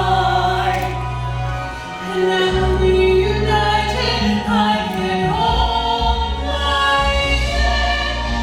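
A chorus of voices singing a musical-theatre number over sustained low bass accompaniment.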